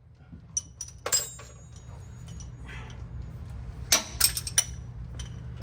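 Metal hand tools clinking and clanking against car exhaust bolts and pipes as the exhaust is unbolted: scattered sharp metallic clinks, a cluster of the loudest about four seconds in, over a steady low hum.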